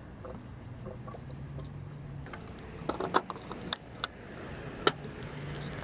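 The last of a bottle of fuel-system cleaner draining into a car's fuel filler neck, then the fuel cap being screwed back on with about five sharp clicks over two seconds.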